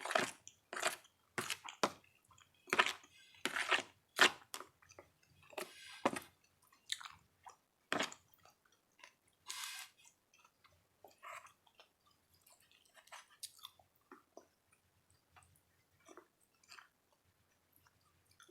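Close-miked chewing of food, with irregular bites and crunches, busy and louder for the first eight seconds or so, then sparser and fainter.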